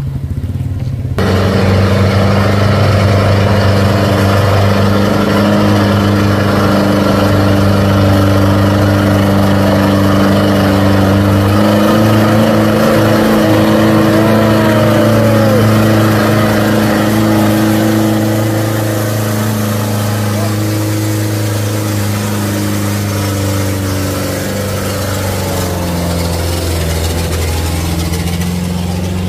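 Diesel engines of two Mitsubishi light trucks running steadily under load as they climb, the lead dump truck towing the loaded Fuso Canter by a chain. The engine note eases a little about two-thirds of the way through.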